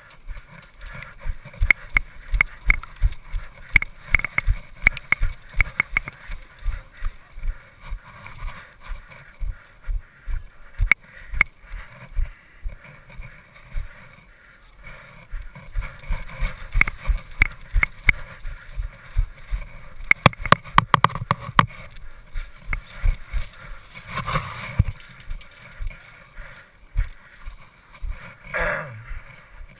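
Footsteps of a player running and walking, heard through a body-worn action camera as a steady run of low thumps, about two to three a second, with gear rattling and sharp clicks. The thumps pause briefly about halfway through.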